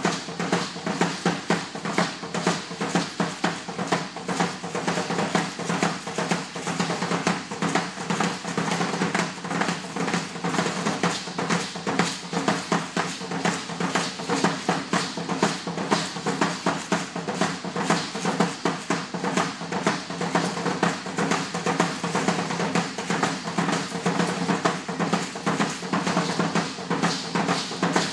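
Danza Azteca drumming, a steady fast beat, with a dense rapid rattle from the dancers' ankle rattles over it.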